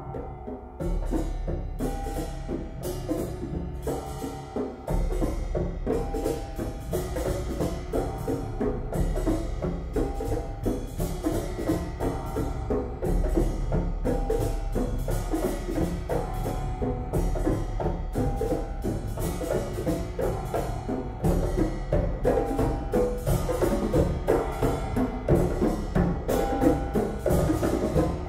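Percussion ensemble playing a fast, dense passage: many pitched notes and drum strikes in quick succession, with a low bass rumble underneath from about a second in.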